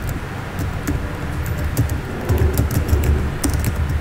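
Computer keyboard typing: a run of irregular key clicks as a command is typed, over a steady low background rumble.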